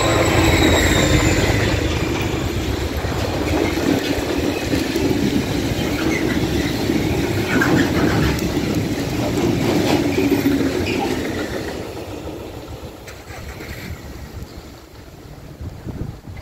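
Diesel freight locomotive passing close with its engine running, followed by a long train of loaded flat wagons rolling by, their wheels rumbling and knocking over the rails. The sound fades away over the last few seconds as the train leaves.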